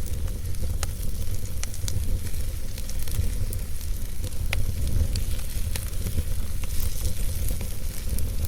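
Campfire burning: a steady hiss with sharp crackles and pops from the burning wood, about one a second, over a steady low rumble.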